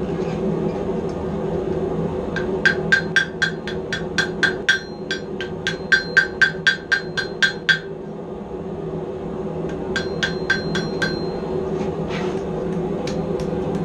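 Hand hammer striking hot steel on an anvil in quick runs of blows, about four a second, each with a short metallic ring, as the edges of the forged claws are knocked down and rounded. A steady low hum runs underneath.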